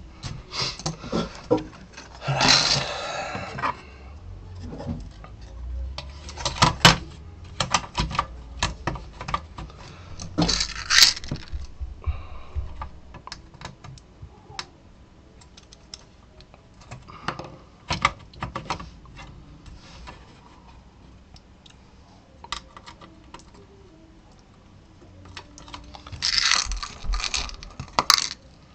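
Hand work on a monitor's sheet-metal chassis and circuit board: scattered clicks and knocks of the board and a screwdriver against the metal frame, with a few short rattling clatters of small metal screws being handled on the desk.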